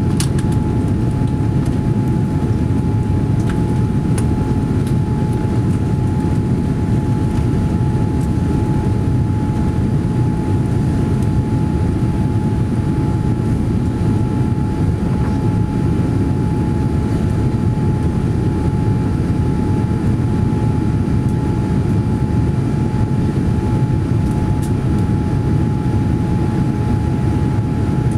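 Steady cabin noise inside a Boeing 787-9 airliner: an even, low rush of engine and airflow noise with a faint, steady whine-like tone riding above it, unchanging throughout.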